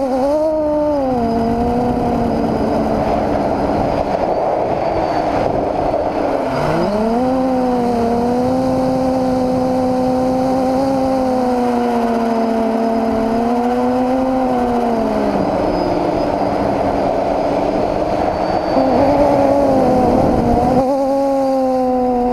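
Multirotor's brushless motors (SunnySky 2216 1100kv) spinning 9x5 props in flight, a steady whine whose pitch falls and climbs with the throttle, with a sharp drop and climb about six seconds in. A rush of wind sits under it.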